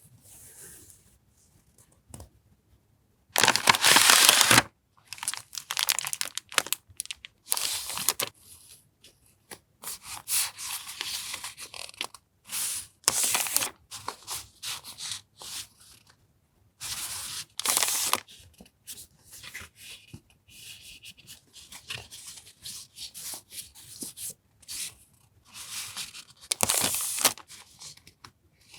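Paper and plastic packaging of journaling stationery rustling, crinkling and tearing as it is unpacked by hand, in a series of short bursts with pauses between. The loudest, about three and a half seconds in, lasts about a second.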